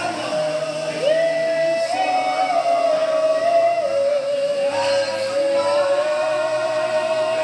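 A group of men singing together in harmony, unaccompanied. One voice holds long, steady notes above lower voices that hold their own notes beneath it.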